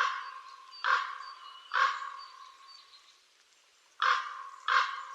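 A crow cawing: three harsh caws about a second apart, a pause of about two seconds, then two more, each call trailing off.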